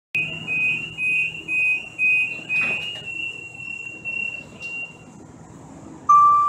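Door-closing warning beeps of a Siemens S200 light-rail car, a high beep repeating about twice a second while the door slides shut, then a held tone that fades out. A louder, lower tone starts abruptly near the end.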